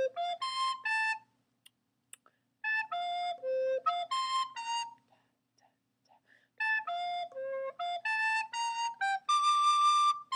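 Soprano recorder playing short, separated notes in three phrases with pauses between, stepping down and up through A, F and low C in an F-major arpeggio pattern. The last phrase ends on a longer held high note.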